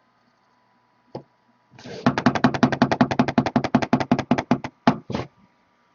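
Rapid, even clicking, about ten clicks a second for nearly three seconds, then a few slower clicks; one lone click comes about a second earlier.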